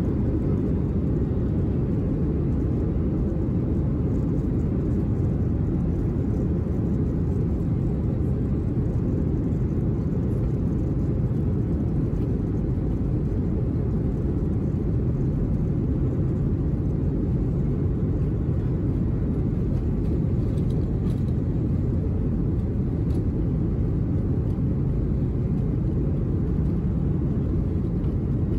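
Steady low rumble inside the cabin of a Boeing 737-800 moving along the ground, from its engines and rolling wheels.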